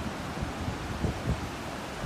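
Steady seaside wind and surf noise, with low gusts buffeting the microphone, the strongest about a second in.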